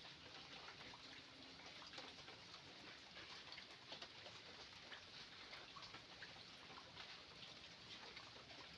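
Near silence: faint background hiss with scattered soft ticks and clicks.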